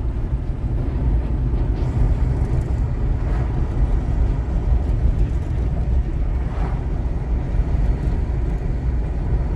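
Steady low rumble of a vehicle driving at road speed, heard from inside the cabin: engine and tyre noise.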